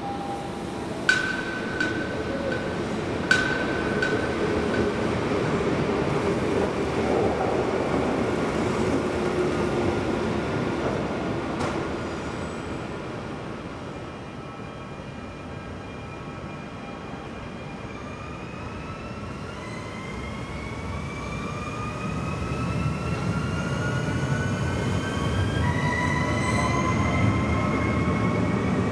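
SNCF Alstom Regiolis electric multiple unit pulling away from the platform: its traction motors give several rising whines that climb steadily over the last ten seconds, over a growing rumble of wheels on rail. Near the start there are two short beeps, each with a click, about two seconds apart.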